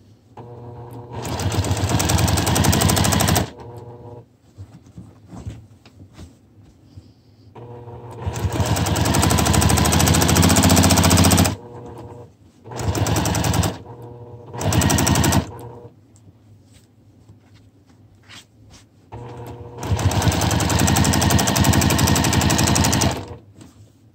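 Juki TL2200QVP Mini straight-stitch sewing machine running fast in free-motion quilting, its needle chattering in five bursts that start and stop, with quieter pauses between as the quilt is repositioned.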